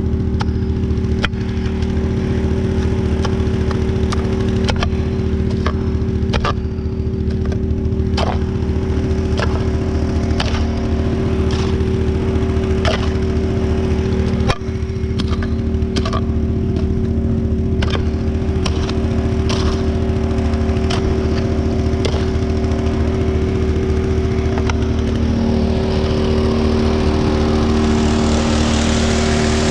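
Small engine of a trommel's water pump running steadily, with stones knocking and clattering irregularly as gravel tumbles through the trommel. A rushing hiss of water and gravel rises near the end.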